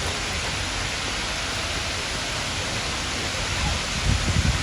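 Distant waterfall making a steady, loud rushing noise. A brief low rumble rises over it about four seconds in.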